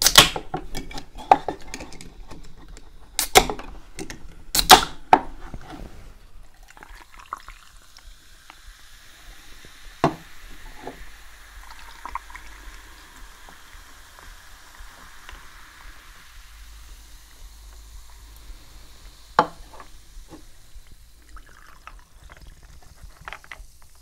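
Aluminium soda cans of cola, Fanta orange and lemon-lime cider cracked open one after another, three sharp pops in the first five seconds. Then the carbonated drinks are poured over ice into glasses, with a steady fizzing hiss and a couple of sharp clicks.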